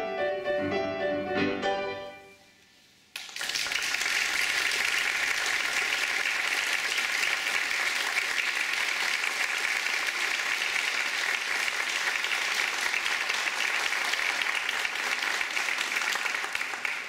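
Grand piano played four hands sounds its final notes, which ring out and fade within about two seconds. About three seconds in, an audience breaks into applause, which holds steady until it stops near the end.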